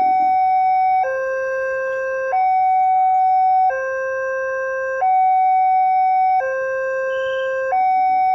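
Indonesian railroad level-crossing warning alarm sounding, a higher and a lower electronic tone alternating about every 1.3 seconds, the signal that a train is approaching and the barrier is down.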